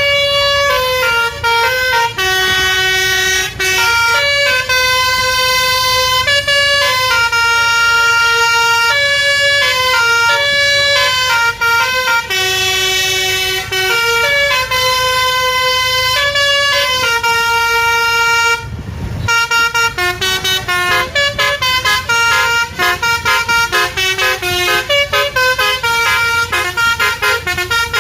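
Basuri musical horn, the multi-tone electric horn fitted to Indonesian 'telolet' buses, playing a melody of held notes. About two-thirds of the way through it stops briefly, then plays a quicker run of short notes.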